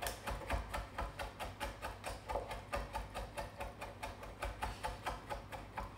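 Chef's knife chopping capers on a wooden cutting board: a quick, even run of light taps, about six a second.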